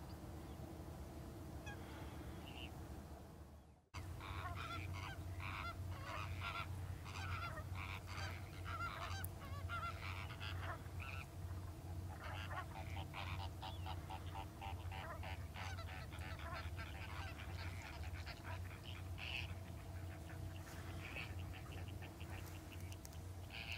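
A flock of flamingos calling, a dense chorus of goose-like honks and chatter over a steady low hum. It starts after a sudden cut about four seconds in, following a fainter stretch with only a couple of calls.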